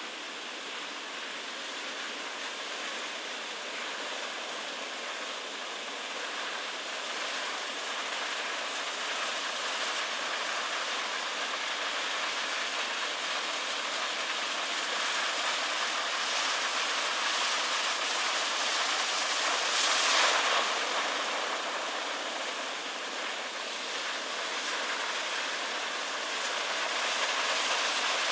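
Heavy ocean surf breaking on the shore: a continuous rushing wash of foam and breakers that slowly builds in loudness, with one wave crashing louder than the rest about two-thirds of the way through.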